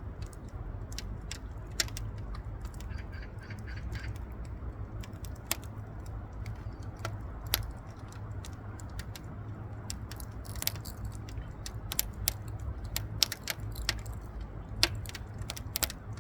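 Wood burning in a wood stove, crackling with irregular sharp pops over a low steady rumble.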